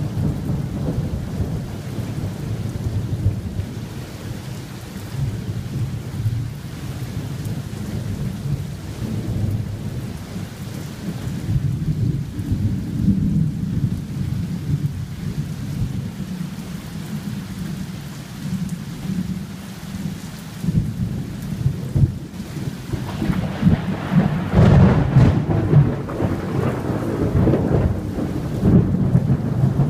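Rolling thunder rumbling low and continuously in a thunderstorm, with rain falling. A louder peal builds about three-quarters of the way through and then eases off.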